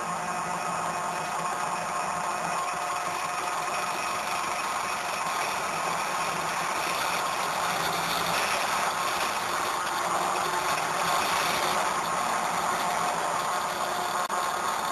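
Stepper motors of a hot-wire CNC foam cutter driving the machine through a cut: a steady mechanical hum with faint whining tones.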